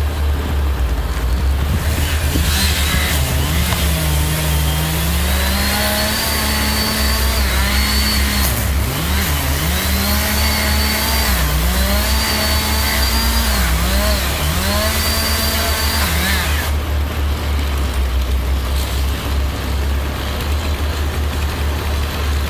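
A chainsaw revs up and down repeatedly, dipping and recovering as it cuts, over a steady low diesel engine hum, likely the crane's. The saw stops about three-quarters of the way through, leaving the engine hum running.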